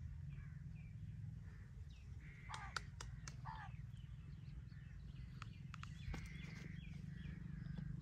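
Wild birds chirping and calling in short rising and falling notes, over a steady low rumble, with a few sharp clicks around the middle.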